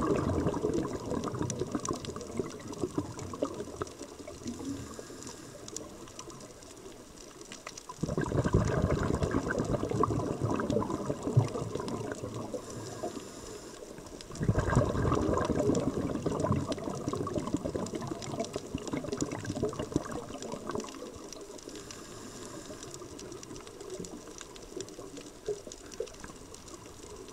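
Underwater sound picked up through a camera housing: a scuba diver's exhaled bubbles gushing from the regulator in two sudden surges, about eight and fourteen seconds in, each fading over several seconds. A steady fine crackling of clicks runs underneath.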